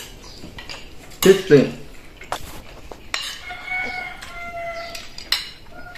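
Metal spoons and forks clinking and scraping against ceramic plates and bowls during a meal, in scattered sharp clicks. In the second half, a drawn-out wavering tone sounds for about two seconds, fading near the end.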